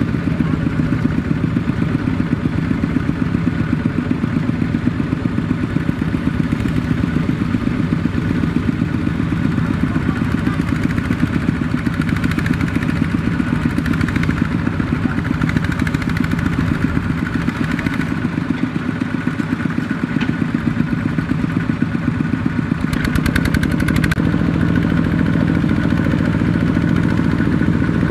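Two-wheel walking tractor's single-cylinder diesel engine running steadily with a fast, even chugging while it pulls a loaded rice trailer through deep mud. A brief rattle comes near the end.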